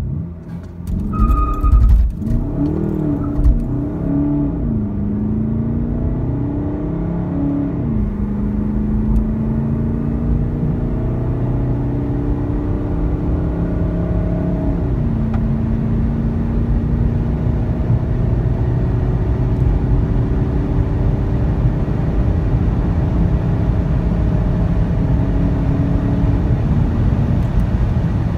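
A remapped Volkswagen Golf 7 GTD's 2.0 TDI four-cylinder diesel accelerating hard at full throttle from standstill, heard from inside the cabin. The engine note rises through each gear and drops at each quick upshift of the automatic gearbox in sport mode. The shifts come close together at first and are spaced further apart as the car nears 200 km/h.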